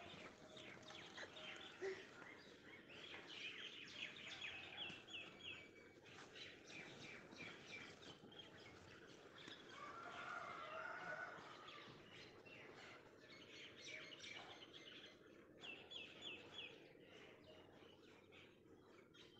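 Faint birds chirping in short runs of quick, high notes, with light clicks of a small steel spoon against a tiny metal pot.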